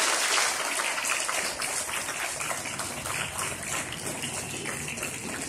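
Audience applause dying away: dense clapping at first that thins out within about half a second into scattered claps.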